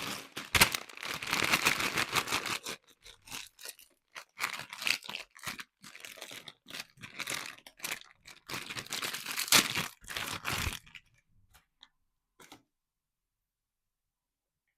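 Plastic packaging of a Labubu Pop Mart blind box being torn open and crinkled in dense bursts, then in shorter irregular rustles, tapering to a few light clicks near the end.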